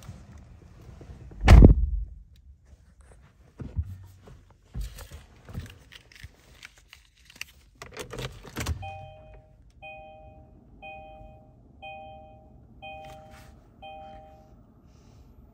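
A heavy thump about a second and a half in, then clicks and rustling from handling inside the car, followed by the 2016 Kia Optima's dashboard warning chime beeping six times, about once a second, with the car switched on.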